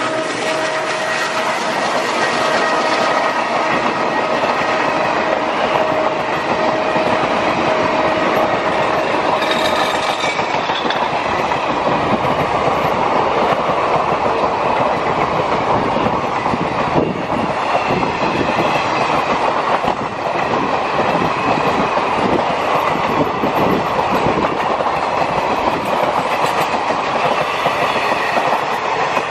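Blue Indian Railways passenger coaches of an express train rolling past at speed, their wheels clattering on the track in a loud, steady rush of noise.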